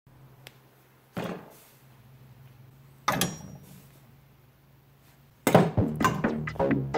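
Two thunks of items being set down on a hard board, the second with a short metallic ring; about five and a half seconds in, loud music with a beat starts.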